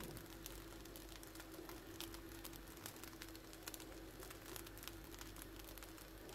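Egg fried rice frying in a pot on a gas hob, giving faint irregular crackling over a steady low hum.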